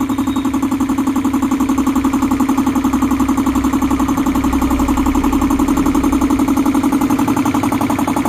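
Belt-driven reciprocating air compressor running steadily with a fast, even pulsing beat and a strong hum, the pump newly fitted with a belt and charging its 500-litre air tank.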